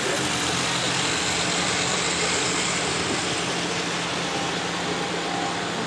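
Steady rumbling whirr of H0 model trains running on the layout, mixed with a constant low hum of the exhibition hall.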